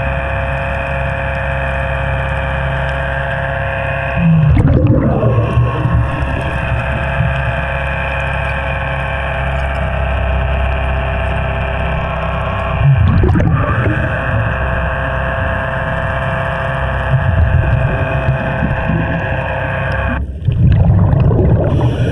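Underwater sound on a river scuba dive: a steady whine of several held tones, like a boat motor carried through the water, that cuts off about twenty seconds in. Gurgling bursts of exhaled regulator bubbles come about four, thirteen and twenty seconds in.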